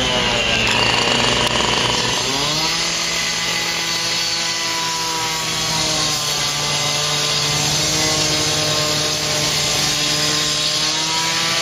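Small engine of a roadworks power tool revving up about two seconds in, then running steadily at high speed, its pitch shifting slightly around six seconds in.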